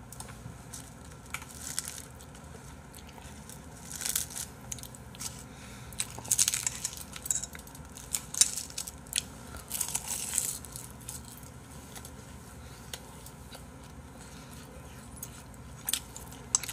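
Close-miked eating sounds: chopsticks clicking against a bowl and the wet smacks of chewing braised kimchi (kimchi-jjim), in scattered clusters of short clicks, with a few quieter seconds in the second half.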